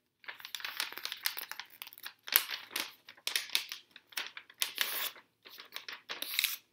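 A glossy magazine page being handled, folded and creased by hand: crinkling paper rustles in irregular bursts with short pauses.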